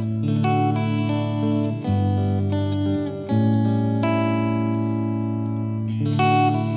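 Background music led by plucked guitar, with a bass line changing notes every second or two.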